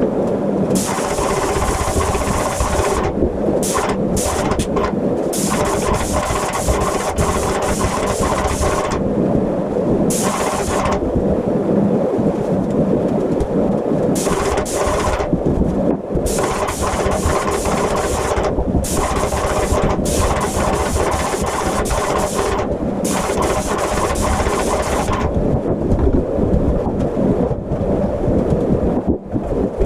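Airless paint sprayer running steadily, with the spray gun hissing in repeated bursts of a second to several seconds as the trigger is pulled and released.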